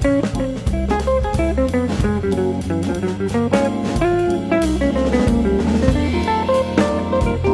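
Background music: quick melodic notes over a steady drum beat.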